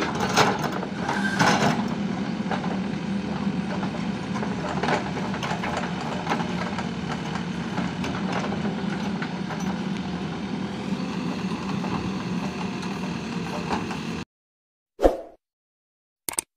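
Mahindra SX backhoe loader's diesel engine running steadily as the backhoe digs gravel and soil, with scattered clanks from the arm and bucket. The sound cuts off suddenly about fourteen seconds in, followed by a short sound effect and a click.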